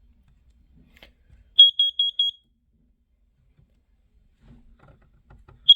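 Carbon monoxide alarm sounding on test: four quick, high-pitched beeps, a pause, then one more beep starting the next round near the end. The four-beep pattern is the standard carbon monoxide alarm signal.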